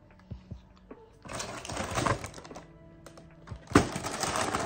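Background music, with a few small clicks early on and then two stretches of loud crackling noise, each over a second long: one starting about a second in, the other starting sharply near the end.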